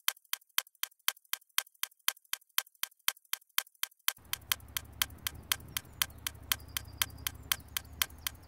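Clock-style ticking from a countdown timer sound effect, about four even ticks a second, marking a timed 60-second task. The ticks sit over dead silence at first; about four seconds in, faint outdoor background comes in beneath them, and the ticking stops near the end.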